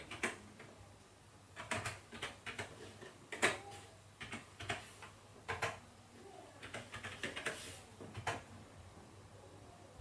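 Keys typed on TheVIC20's keyboard: irregular clicking keystrokes in short clusters with pauses between, stopping a little before the end.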